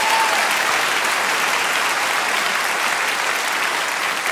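Live audience applauding steadily for a band member who has just been introduced.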